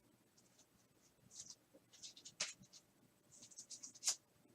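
Trading cards being handled: faint, short scrapes and rustles of card stock, in small clusters about a second and a half in, around two and a half seconds, and again near the end.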